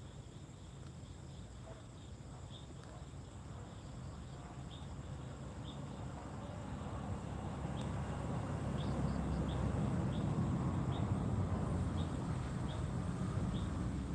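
Short high insect chirps repeat about once or twice a second over a low rumble that swells in the second half.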